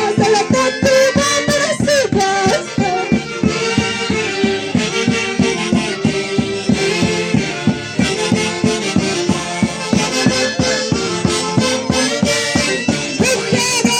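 Live band music: a held, reedy wind-instrument melody over a quick, steady percussive beat.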